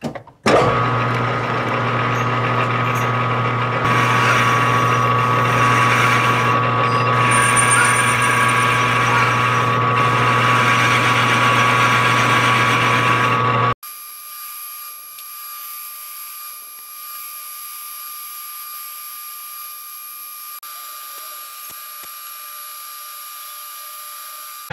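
Metal lathe running under power while a boring bar, fed by hand on the compound slide, cuts a 4-degree taper inside a pulley bore: a steady motor and gear hum with cutting noise. About 14 seconds in it drops suddenly to a much quieter steady hum.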